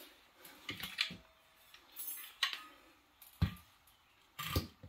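Metal hand tools and engine parts clinking and knocking during disassembly: a string of separate light clicks and ticks, with a heavier knock about three and a half seconds in and two more knocks near the end.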